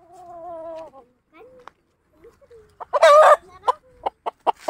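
A chicken squawking loudly about three seconds in, as if grabbed and held, then breaking into short, quick clucks near the end; a shorter pitched call sounds at the start.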